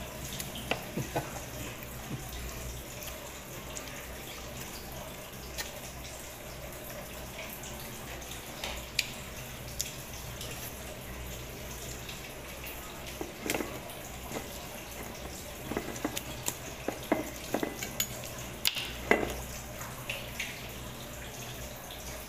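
A person eating by hand and chewing: scattered short wet clicks and smacks, in clusters in the second half, over a steady background hiss and low hum.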